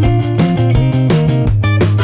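Background music with a steady beat: a guitar over a strong bass line.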